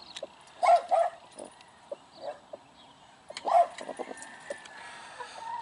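Dog barking: two quick barks just before a second in, and another a little past the middle.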